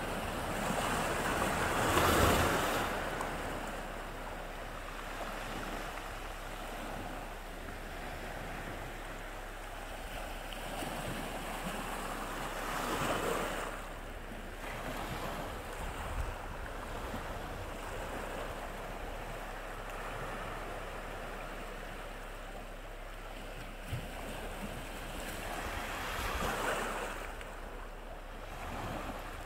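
Sea waves washing onto the shore: a steady rush of surf that swells into a louder break about two seconds in, again near the middle and again near the end, then falls back. One short click about three quarters of the way through.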